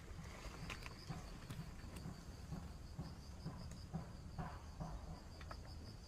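Faint, steady cricket trill, evenly pulsing and high-pitched, with a few faint scattered clicks and taps.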